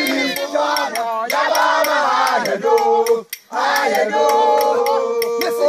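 A group of people singing together in chorus, several voices holding long notes in unison phrases, with a short break a little past the middle. Evenly spaced sharp claps keep a steady beat throughout.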